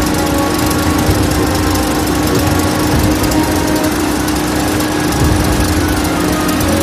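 Copper cable granulator running steadily: a constant hum with a dense hiss over it.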